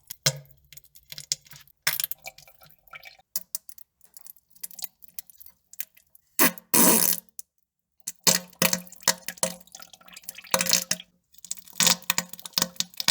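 Wet poop and fart sounds: a run of short, irregular splats and crackles, some over a low buzzing tone. The loudest is a longer wet burst about halfway through, followed by a short pause.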